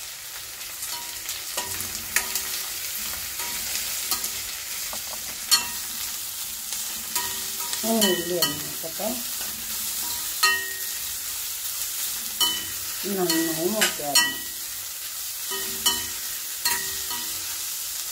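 Sliced onions sizzling in hot oil in a stainless-steel kadai, stirred with a steel ladle that clinks and scrapes against the pan. Twice, about eight and thirteen seconds in, a brief wavering tone sounds over the sizzle.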